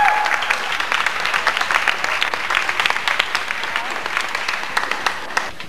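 Audience applauding in a gymnasium, the clapping slowly thinning and fading toward the end. A single rising cheer from a spectator sounds right at the start.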